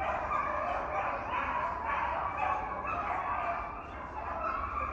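A pack of beagles baying together in a continuous, overlapping chorus: hounds in full cry on a rabbit's trail.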